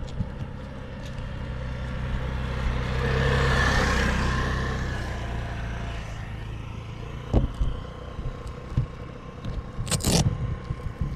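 A motor humming, swelling to a peak a few seconds in as it passes close and then fading away, with sharp knocks about seven and ten seconds in.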